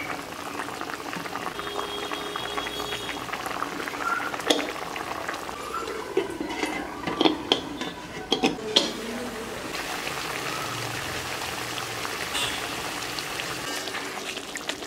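Hilsa in poppy-seed gravy simmering in a wok, a steady bubbling, with a few sharp metal clanks of the lid about seven to nine seconds in.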